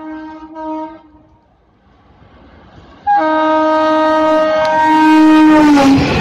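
Electric locomotive horn on a fast passenger train: one blast fades out about a second in, then a loud, long blast starts about three seconds in. Its pitch drops as the locomotive passes close by, and the rushing rattle of the coaches takes over right at the end.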